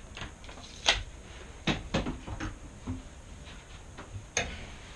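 About five light knocks and clicks of tools and a piece of wood being handled and set down on a table saw's top while measuring and marking, the first about a second in the loudest.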